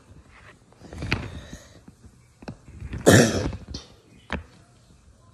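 A person coughing: a softer cough about a second in and a louder one about three seconds in, with a few short clicks between and after.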